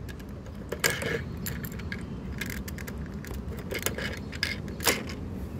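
Plastic Lego bricks and plates clicking and clattering as they are lifted off the model and set down, a scattering of short sharp clicks over a low steady rumble.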